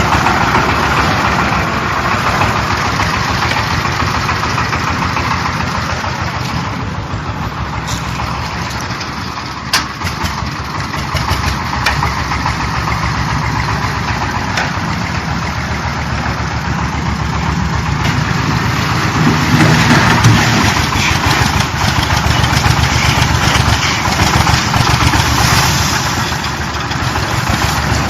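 JZC350 concrete mixer running steadily, its motor and turning drum making a loud, even machine noise with a fast regular pulse.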